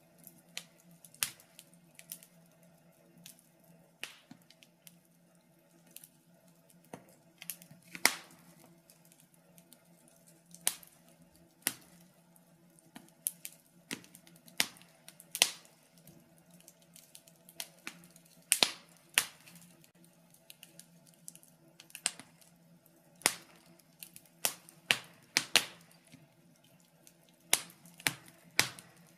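Wood fire in a fireplace crackling, with irregular sharp pops and snaps, often a second or less apart, over a faint steady low hum.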